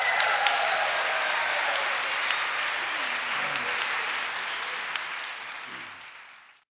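Audience applause, many hands clapping steadily, fading out near the end.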